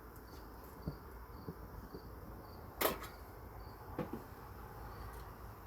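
Honeybee colony humming at the open hive, with a few light knocks and clicks from the hive being worked, the sharpest about three seconds in and another about a second later.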